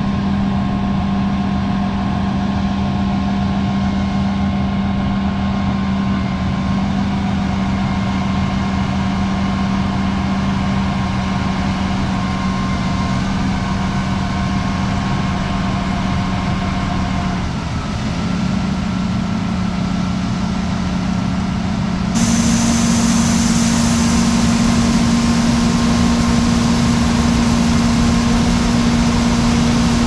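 Large engine of harvest machinery running steadily at a constant speed, with a brief dip in its note a little over halfway. About three-quarters through it switches abruptly to a slightly higher, hissier steady engine hum.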